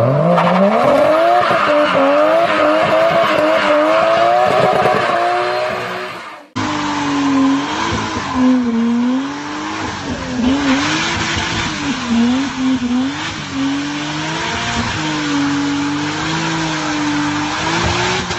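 Car engines revving hard with tires squealing, as in burnouts. The first clip holds a steadily climbing rev; after an abrupt cut about six seconds in, a second clip has revs rising and falling over and over.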